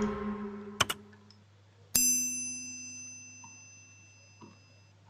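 Sound effects of an on-screen subscribe-button animation: the tail of a whoosh fading out, a single mouse-style click about a second in, then a bright bell-like notification ding about two seconds in that rings on and fades away over about three seconds.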